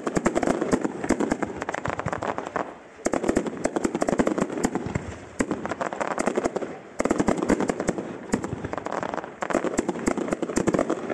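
Fireworks display: a dense, rapid rattle of bangs and crackling from shells and ground pieces, easing briefly about three seconds in and again near seven seconds before picking up again.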